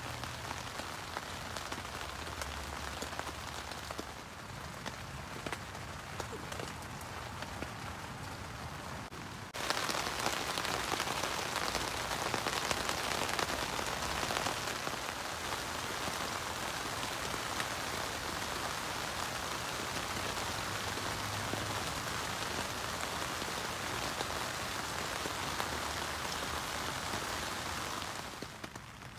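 Steady rain falling. From about ten seconds in it is louder and brighter: rain drumming on the tent fabric, heard from inside the tent. It drops away near the end.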